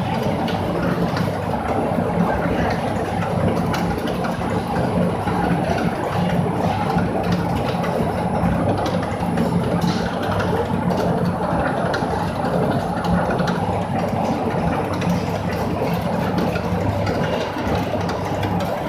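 Automatic cage spot-welding machine for concrete-pipe reinforcement running: a steady mechanical drone over a low hum, with a few faint clicks.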